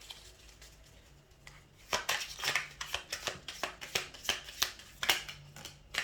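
A deck of cards being shuffled by hand for a card reading: fast crisp clicks and flutters in short runs, starting about two seconds in.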